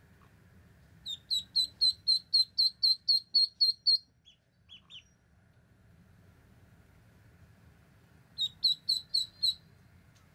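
Ducklings peeping: a run of about a dozen short, high peeps at roughly four a second, a couple of softer, lower notes, then another run of about six peeps near the end.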